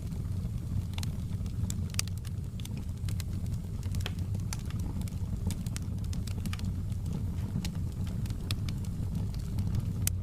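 Fire burning in a fireplace: irregular crackles and pops over a steady low rumble, with one sharper pop near the end.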